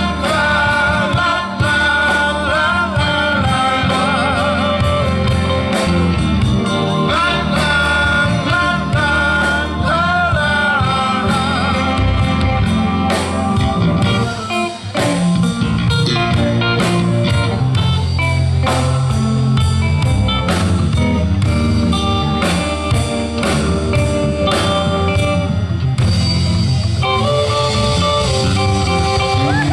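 Live band playing a slow soul ballad with electric guitar, bass guitar, keyboards, drums and horns.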